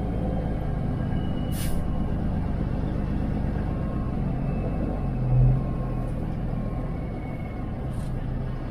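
Kenworth W900 semi truck's diesel engine running steadily as the loaded truck pulls slowly away, with a short hiss about two seconds in and a brief low thump about five seconds in.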